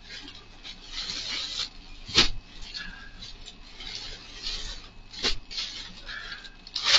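Plastic packaging rustling as items packed in plastic bags are rummaged through, with two sharp knocks, about two seconds and five seconds in.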